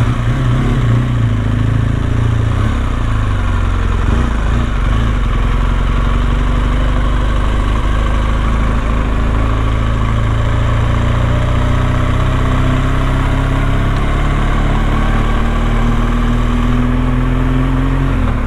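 BMW R1200GS Adventure's boxer-twin engine running under way, heard through a microphone inside the rider's helmet. Its pitch climbs slowly over the second half as the bike picks up speed.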